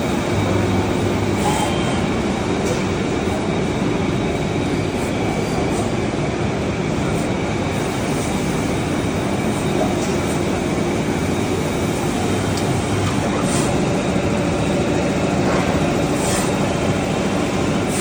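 Five-axis CNC router running: a steady mechanical noise with a faint hum and a few short high clicks scattered through it.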